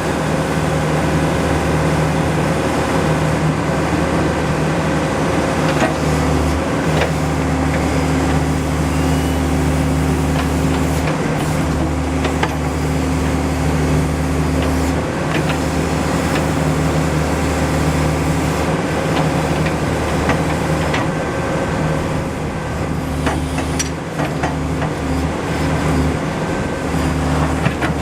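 John Deere 310SG backhoe loader's diesel engine running, its note dipping and returning a few times, with scattered sharp clanks of metal.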